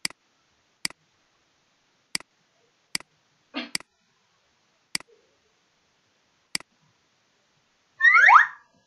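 Seven single, sharp computer-mouse button clicks at uneven intervals over about six and a half seconds. Near the end comes a brief, louder chirp-like squeak whose pitch glides quickly.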